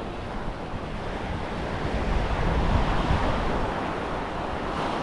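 Ocean surf breaking and washing up the beach, swelling a little about halfway through, with wind rumbling on an unshielded microphone.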